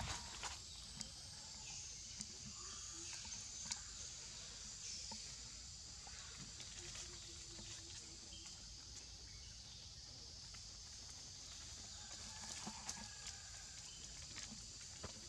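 Forest ambience: a steady high-pitched chorus of insects, with scattered rustles and snaps in the leaf litter, a few near the start and a cluster a little before the end.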